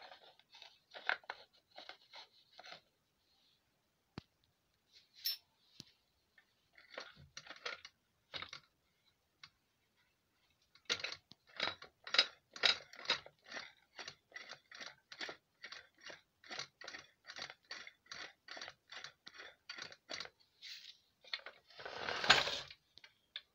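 Metal parts of a homemade pipe-fitting lathe being worked by hand: short scraping clicks, scattered at first, then an even run of about two or three a second, ending in one longer, louder scrape near the end. The lathe is not running.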